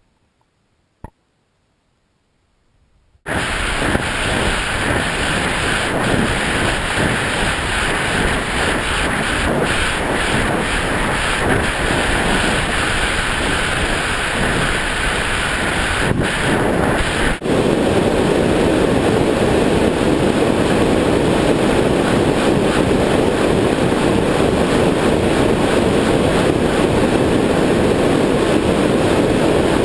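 Air rushing past a falling weather-balloon payload box, a foam cooler holding a GoPro, after the balloon bursts at about 80,000 feet. Near silence with two short clicks gives way suddenly, about three seconds in, to a loud steady rush, which turns deeper about halfway through.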